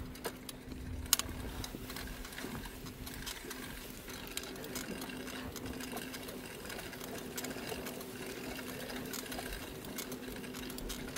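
Full-suspension mountain bike being ridden, its drivetrain making a fast, steady mechanical clicking whir over a constant low hum.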